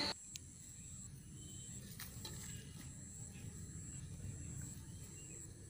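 Open-field ambience: a high-pitched insect trill that comes and goes in spells of about a second, over a low wind rumble on the microphone. There is a faint click about two seconds in.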